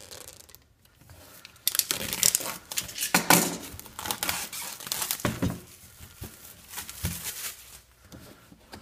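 Plastic shrink-wrap being slit with a utility knife and peeled and crinkled off a cardboard box, in uneven bursts of crackling and tearing that are loudest about three seconds in.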